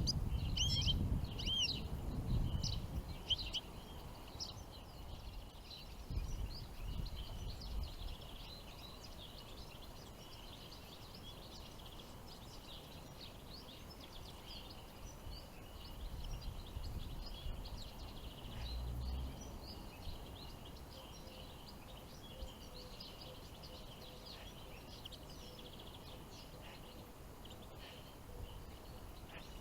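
Small songbirds chirping and twittering in many short, quick calls throughout. A low rumble is heaviest in the first few seconds and returns briefly around the middle.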